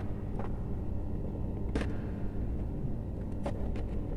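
A few sharp clicks and light knocks from electrical cable and plastic junction-box and switch fittings being handled as wires are routed, over a steady low background rumble.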